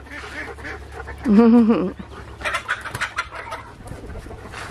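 Dog panting in quick rough breaths, with one short wavering call about a second and a half in.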